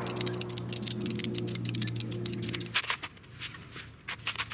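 Ratcheting tie-down strap being cranked tight: a rapid run of ratchet clicks over a steady low hum, stopping about three seconds in, followed by a few softer scattered clicks and scrapes.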